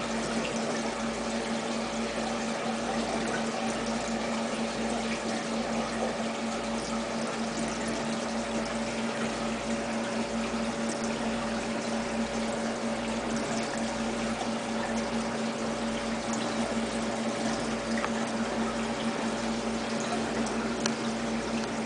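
Small water pump humming steadily with water trickling, a faint low throb repeating about once a second.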